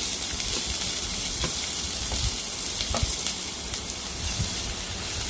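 Finely chopped onions sizzling steadily as they go into hot oil in a kadhai. A few light taps and scrapes come from a steel spatula pushing the onions off a plate into the pan.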